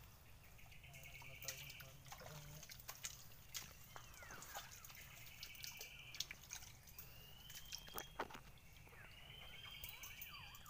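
Soft drips, plinks and small clicks of shallow muddy water as a hand gropes through mangrove mud, with short high buzzing trills now and then.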